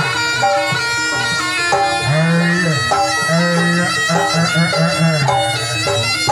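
Jaranan dance music: a slompret, the Javanese double-reed shawm, plays a melody over the accompanying ensemble.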